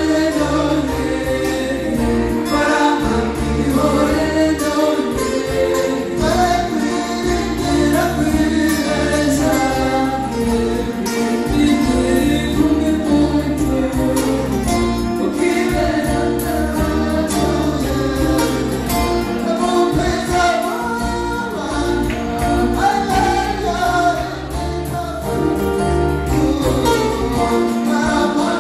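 Live group singing: several singers on microphones singing together over amplified backing with a steady bass line.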